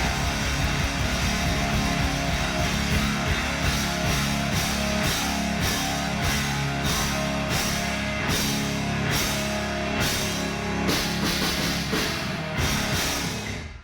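Loud rock music from drum kit and guitar. From about four seconds in it carries a steady pulse of crashes, roughly one every half second or so. It stops suddenly at the very end.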